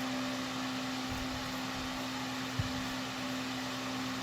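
Electric fan running steadily with a constant hum, with a faint low knock about two and a half seconds in.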